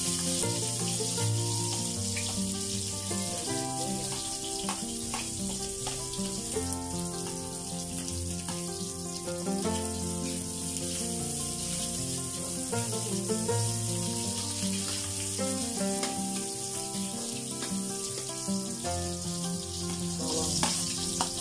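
Onion, ginger and garlic sizzling in hot oil in a wok, a steady frying hiss, under background music with a stepping melody.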